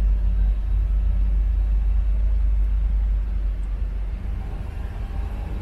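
A Jeep driving along a road, its steady low engine and road rumble heard from inside the cabin, easing off a little about three seconds in.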